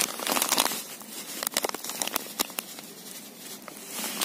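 Irregular crinkling and crackling close to the microphone, with scattered sharp clicks, busiest in the first second and again near the end.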